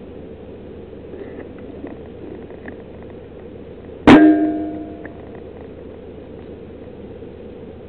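A single rifle shot at a rat, sharp and loud, followed by a brief metallic ringing that dies away in about half a second.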